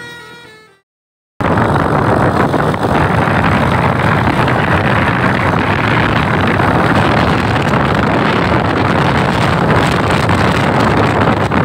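A multi-note telolet bus horn tune fades out in the first second. After a brief break in the sound, steady loud road and wind noise from a moving vehicle follows, with wind buffeting the microphone.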